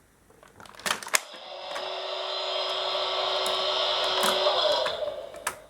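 Interactive Tracy Island toy playset starting its Thunderbird 2 launch sequence: two clicks about a second in, then a steady whirring hum for about three and a half seconds that swells slightly and fades near the end.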